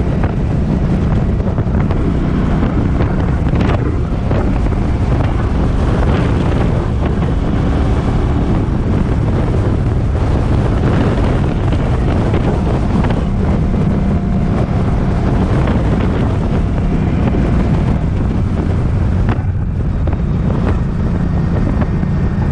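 Loud wind noise buffeting the microphone in strong gusts while riding, with the Suzuki Boulevard M50's V-twin engine running steadily underneath.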